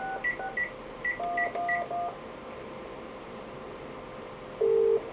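Touch-tone keypad dialing on an analog cordless phone, heard over a radio scanner tuned to the phone's frequency. About five quick dual-tone key presses, with short high beeps, come in the first two seconds, and a short low tone sounds near the end as the call starts to go through.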